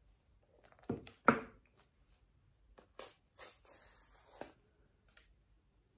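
An iPhone 15 Pro Max box being torn open by hand: a couple of sharp handling knocks about a second in, the loudest sounds, then the paper pull-tab seal tearing in a rasp of about a second and a half near the middle.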